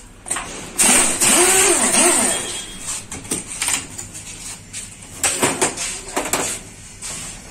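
Pneumatic impact wrench running for about a second and a half on the clamp-band bolt of a truck spring brake chamber, a loud hissing whirr that wavers in pitch. It is followed by a few sharp metal knocks and clinks as the parts are handled.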